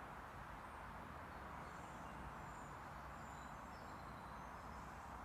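Faint woodland ambience: a steady soft hiss with a low rumble beneath, and a few faint high bird chirps.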